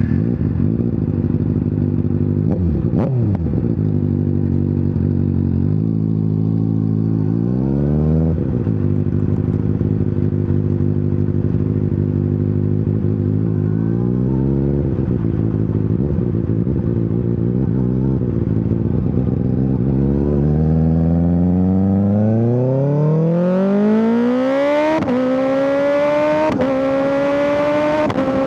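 2025 Kawasaki ZX-6R's 636 cc inline-four engine idling with three short throttle blips. About two-thirds of the way in it revs up in a long climb as the bike pulls away, with quick upshifts in the last few seconds.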